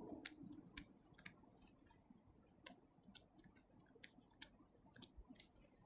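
Near silence with faint, irregularly spaced light clicks, about a dozen of them.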